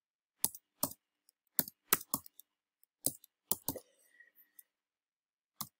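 Computer keyboard being typed on slowly: about nine separate, unevenly spaced keystroke clicks, with a gap of nearly two seconds before a last keystroke near the end.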